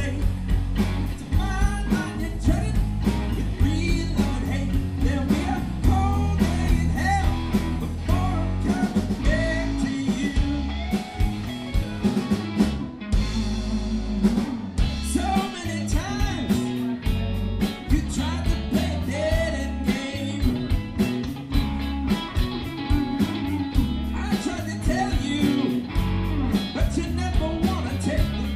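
Live blues-rock band playing with electric guitars, bass guitar and drum kit, the guitar notes bending up and down over a steady beat.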